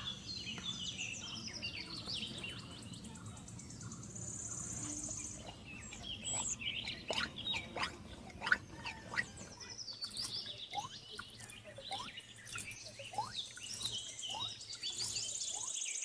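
Several birds chirping and calling in quick rising and falling notes, with a high trill twice, over a faint low hum that cuts off near the end.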